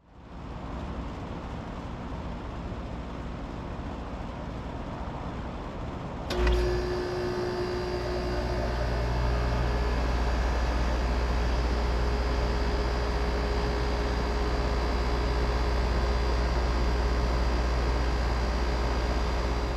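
Outdoor condensing unit of a brand new 5-ton York LX Series central air conditioner starting up about six seconds in: a sharp click, then its LG scroll compressor and Broad Ocean condenser fan motor come on together and settle into a steady low hum with a faint steady whine.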